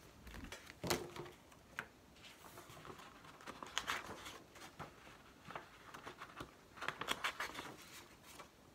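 Paper pages of a softcover music book being turned and flipped: a run of soft rustles and flaps, with clusters about a second in, around four seconds in and around seven seconds in.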